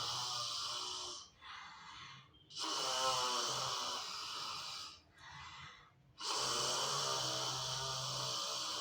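Lion's-breath (simha garjana) yoga exhalations: forceful, hoarse, throaty roars out of an open mouth with the tongue stuck out, each lasting a couple of seconds. Between them come two quieter in-breaths, about a second in and again around five seconds in.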